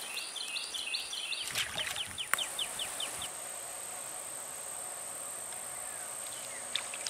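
Birds calling outdoors with quick, repeated high chirps and a short warbling phrase over the first three seconds, over a steady high-pitched insect drone that carries on after the birds stop. A single sharp click a little over two seconds in.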